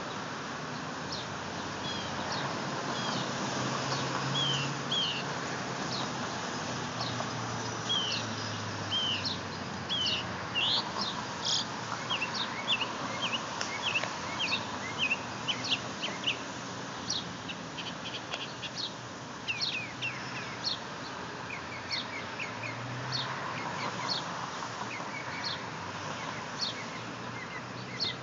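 Northern mockingbird singing a long run of short, quick, varied chirps and whistled notes, busiest in the middle, over a steady background noise.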